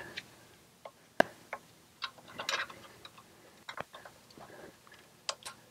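Scattered small clicks and light rustling of a folding pocket knife being worked at the wiring to cut an inverter cooling-fan lead, with one sharp click about a second in.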